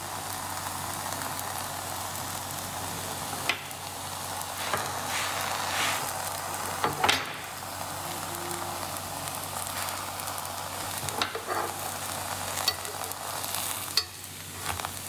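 Stacked, oiled discs of mufleta dough frying on a round electric griddle with a steady sizzle. A few sharp taps and clicks come through as the stack is pressed and shifted by hand and with a spatula.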